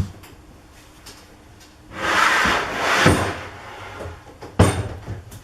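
Wooden panels of a homemade box being shifted and set down: a knock, a scraping of wood across a surface lasting about a second and a half, then a sharp knock near the end.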